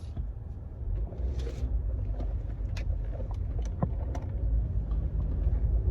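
Low rumble of a car heard from inside the cabin, getting louder toward the end, with a few light clicks and ticks.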